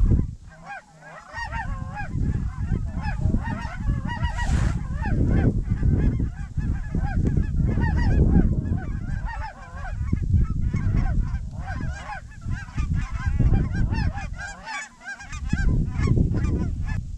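A flock of sandhill cranes calling in flight, many overlapping warbling calls at once, with wind rumbling on the microphone.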